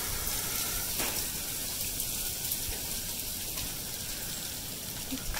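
Steady outdoor hiss with no clear events, and a faint click about a second in.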